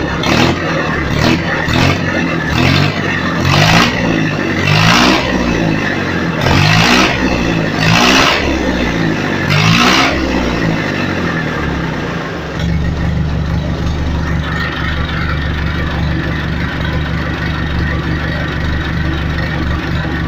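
Massey Ferguson 275 tractor's four-cylinder diesel engine running with no muffler fitted. It is revved in about eight quick throttle blips, each rising and falling in pitch, then settles back to a steady idle for the last several seconds.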